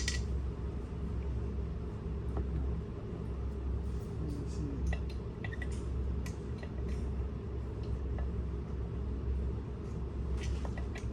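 Scattered light metallic clinks and taps of tools and parts being handled during assembly, over a steady low hum.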